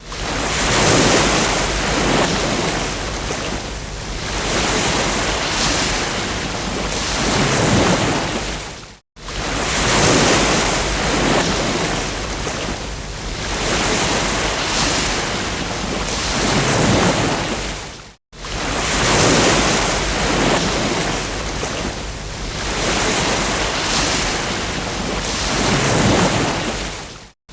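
Ocean waves breaking and washing on a beach, swelling and ebbing every few seconds. Twice the sound cuts out for an instant and starts again, as a looped recording does.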